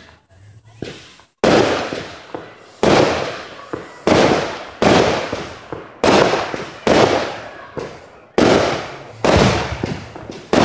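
Aerial fireworks bursting overhead one after another, about one bang a second, each fading away over about a second. The first second or so is quieter before the bangs begin.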